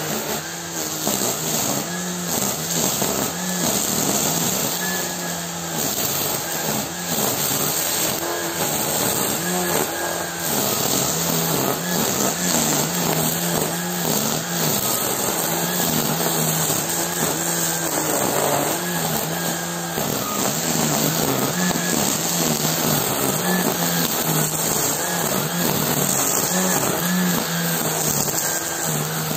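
Gardena string trimmer running and cutting grass: a steady motor whine that wavers in pitch, over the hiss of the spinning line.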